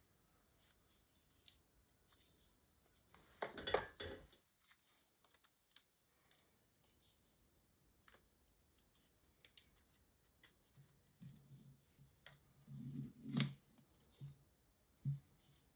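Small clicks and scrapes of a hand tool prying the cracked display off an Oppo phone's frame, with louder rasping scrapes about four seconds in and again near the end.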